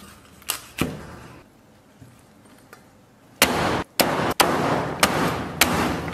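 Chinese cleaver chopping through a roast duck on a wooden chopping block: two chops early, a pause, then a fast run of heavy chops about half a second apart near the end.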